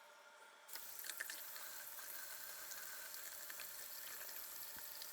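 Water from a faucet starts running about a second in and then runs steadily into the drain, with small splashes.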